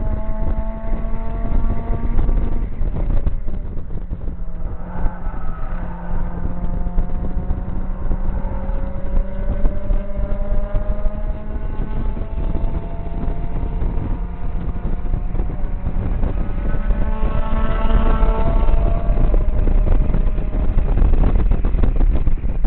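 Mazda MX-5 Mk1 1.8-litre four-cylinder engine with a full decat exhaust under hard acceleration on track, its revs climbing in long rising sweeps and dropping back at each gear change, several times over. A heavy low rumble of wind buffeting and road noise from the open cockpit runs underneath.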